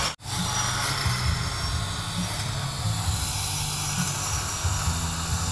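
Battery-powered grass trimmer (a Makita replica) running steadily, its small spinning cutter head whirring as it cuts through tough low weeds. The sound cuts out for a split second just after the start, then carries on unchanged.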